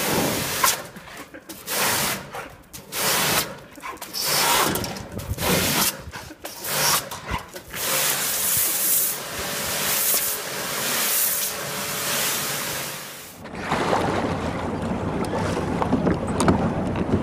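Pressure washer jet hissing in repeated on-off bursts, spraying against wet concrete and a dog's snapping mouth. Near the end this gives way to a steadier rush of wind and sea water from a boat under way.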